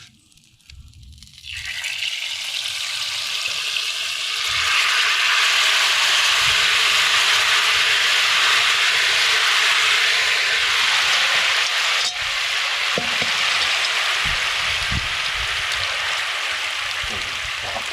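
Ribs sizzling hard in a hot cast-iron pan, a steady loud hiss that starts suddenly about a second and a half in and swells a few seconds later. A single light click comes about two-thirds of the way through.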